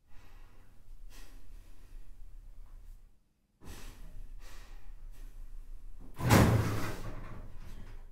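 A drawer in a chest of drawers being pulled open, with one loud rush of noise about six seconds in that fades away, over a steady low hum.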